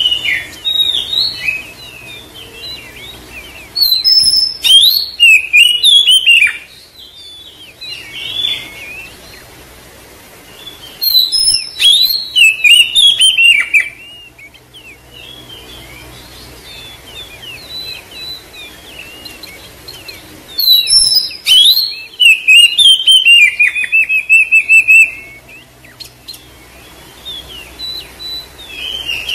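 Oriental magpie-robin singing: three loud bursts of varied whistles and chattering phrases, each lasting a few seconds, with softer twittering in between. The last burst ends in a rapid trill of repeated notes.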